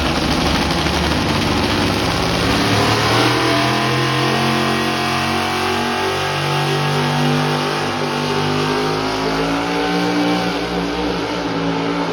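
Pulling truck's engine at high revs under full load during a pull, loud and steady, its pitch wavering up and down as the run goes on.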